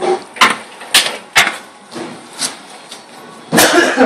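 A string of sharp metal knocks and clanks from a hydraulic engine crane and the BMW engine hanging from it as they are worked, unevenly spaced, with a quick rattle of several knocks near the end.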